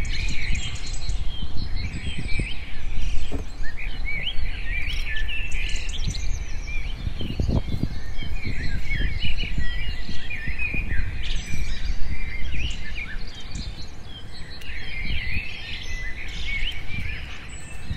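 Several small birds chirping and calling in quick, short notes, over a steady low rumble.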